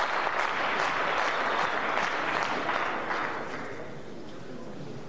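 Spectators applauding a point in a table tennis match, the clapping dying away about three seconds in to a quieter hall background.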